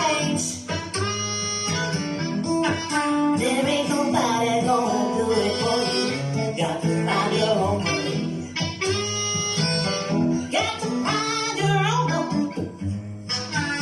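A song with singing and guitar played through a 12-inch, 500-watt mid-range speaker as a sound test.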